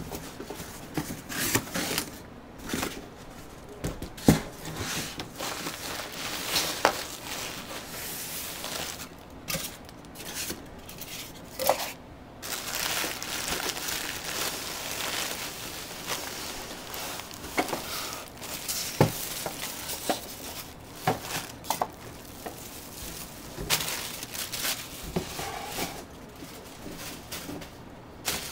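Plastic wrapping crinkling and cardboard rustling as a packaged electric insect zapper is handled and taken out of its box, with scattered knocks and clicks and a longer spell of steady crinkling partway through.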